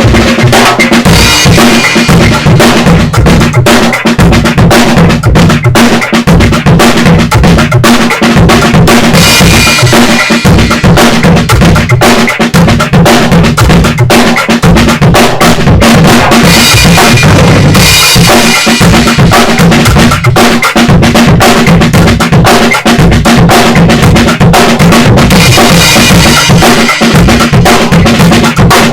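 A compact mini drum kit played in a continuous groove along with a recorded backing track.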